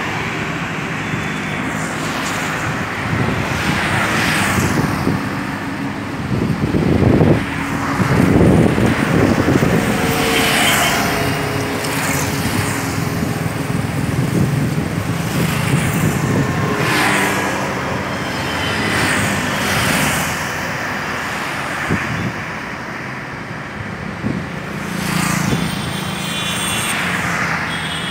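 Road traffic on a busy road: cars and motorbikes passing one after another, each one swelling and fading, over a steady traffic hum.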